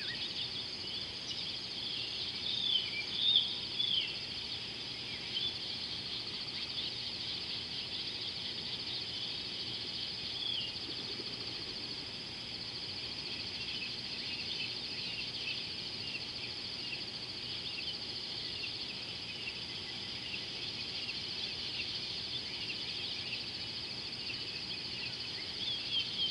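A steady, high-pitched evening chorus of insects, with scattered short chirping calls over it, a few louder ones in the first few seconds and one about ten seconds in.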